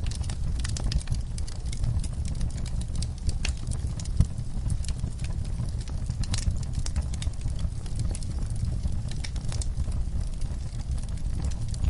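Fire in a fireplace crackling: irregular sharp pops and snaps over a steady low rumble of the flames, with one louder pop about four seconds in.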